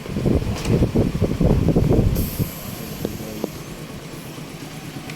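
Low, uneven rumble of a vehicle, then a hiss of escaping air starting about two seconds in and lasting a second or so, before a quieter steady hum.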